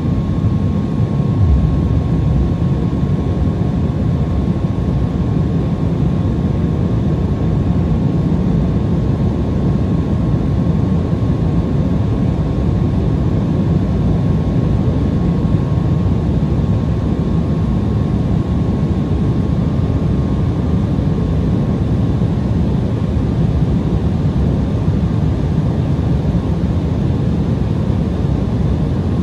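Steady cabin noise of an Embraer E175 jet descending on approach: the roar of airflow and its GE CF34 turbofan engines, with a thin steady whine above it.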